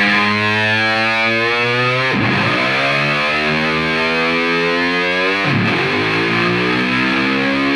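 Intro music on distorted electric guitar: long held chords, each drifting slightly upward in pitch, changing to a new chord twice.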